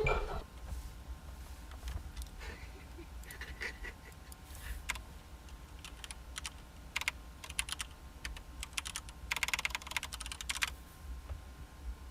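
Typing on a keyboard: scattered key clicks, then a quick flurry of clicks a little after nine seconds in.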